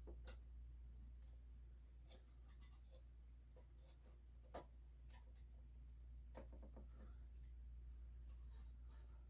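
Faint scattered clicks and taps of a Noctua CPU cooler's mounting hardware being handled and fitted, with one sharper tap about four and a half seconds in, over a low steady hum.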